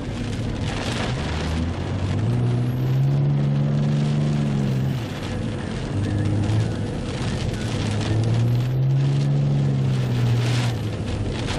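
Car engine heard from inside the cabin, twice rising and then falling in pitch as the car speeds up and eases off, over a steady rush of road, wind and rain noise.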